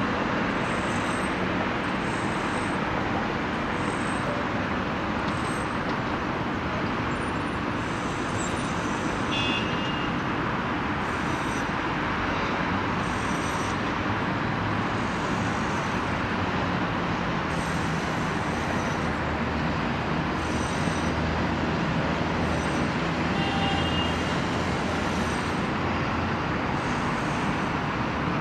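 Steady roar of distant city traffic heard from high above the streets, with a brief high note twice.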